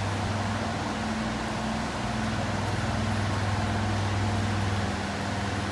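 Electric fan running: a steady low hum with an even rush of air noise.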